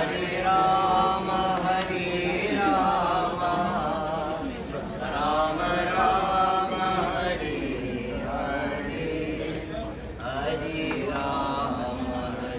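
Voices chanting a Hindu devotional chant, in phrases of a few seconds made of long held notes.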